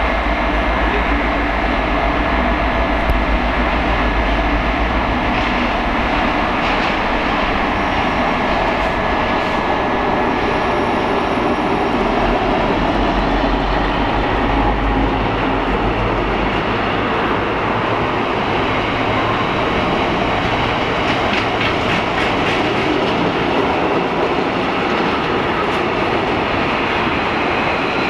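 A diesel locomotive hauling a freight train of tank wagons passes close by at speed, its engine rumbling for the first half. Then the wagons roll past with a steady rush and clattering wheels over the rail joints.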